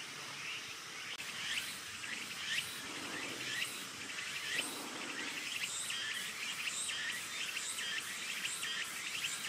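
Insects calling outdoors: a repeating chirp about twice a second over a steady hiss of background noise.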